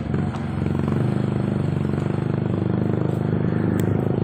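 Motorcycle engine running steadily while riding, with a fast even pulse and a steady pitch. One short click near the end.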